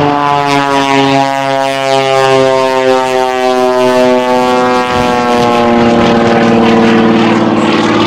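Radial-engine aerobatic biplane running at high power, with a propeller drone whose pitch slides slowly down as the plane pulls up into a climb.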